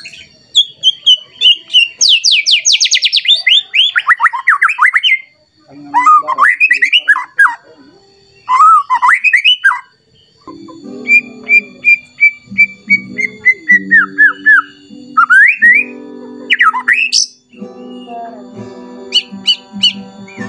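White-rumped shama singing a loud, varied song of whistles and fast trills. A fast trill sweeps downward about two seconds in, and a long run of repeated notes falls in pitch near the middle. Sharp rising sweeps follow later, and a lower steady drone runs under the second half.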